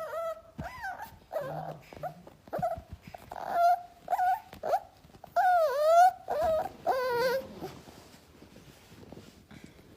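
A puppy whining and yelping in a run of short, high-pitched cries, with one longer wavering cry about halfway through; the cries fade away near the end.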